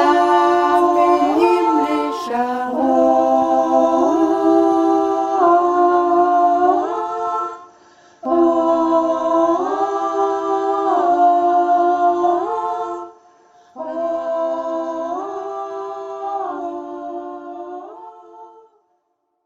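Women's choir singing wordless a cappella chords, held and moving in steps, in three phrases with two short breaks; the last phrase fades away near the end.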